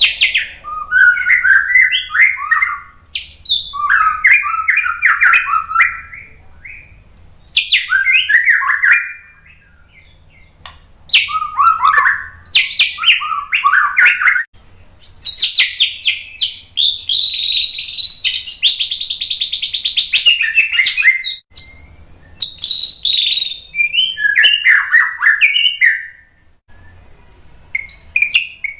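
Male white-rumped shama singing loud phrases of varied whistles and chattering notes, separated by short pauses. About halfway through comes a long phrase of rapid repeated notes lasting several seconds.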